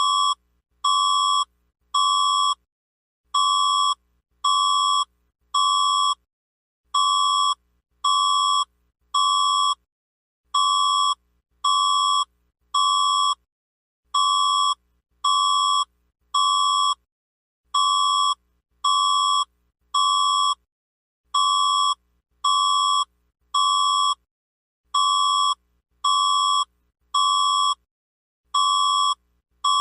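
Emergency alert alarm tone: a single-pitched electronic beep sounding three times about a second apart, then a short pause, the group of three repeating about every three and a half seconds.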